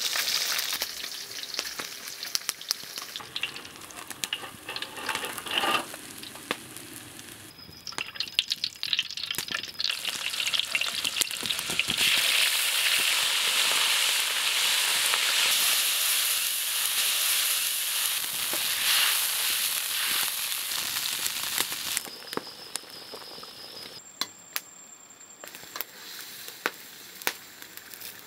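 Hot oil in a wok sizzling and crackling as fish and vegetable chunks deep-fry: a dense sizzle full of fine pops, loudest through the middle stretch and dying down toward the end.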